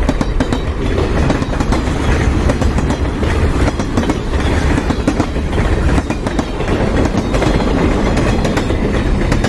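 Train sound effect: a train running along the track, a steady heavy rumble with the rapid, irregular clatter of wheels over rail joints.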